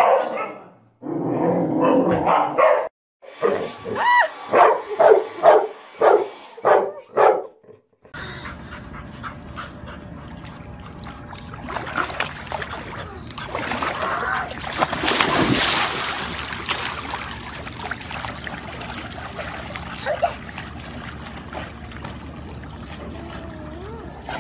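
A dog barking in short, loud bursts, about two a second near the end, for roughly eight seconds, then cut off abruptly. After that comes a steady outdoor background with faint water splashing from a swimming pool.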